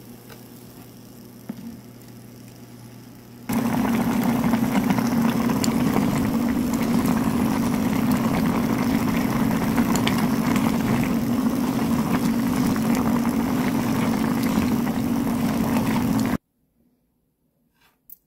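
Kitchen stovetop noise while a pot of noodle broth boils hard on an electric hob: a loud, steady rush with a low hum under it. It starts suddenly about three and a half seconds in and cuts off suddenly a couple of seconds before the end. Before it there is only a quieter low hum.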